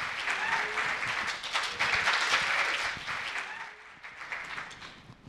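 Audience applauding, a dense patter of many hands clapping that dies away over the last two seconds.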